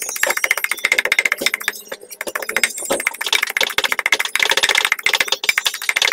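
Wooden pestle pounding garlic and dried red chilies in a wooden mortar: rapid wooden knocks, several a second, without a break.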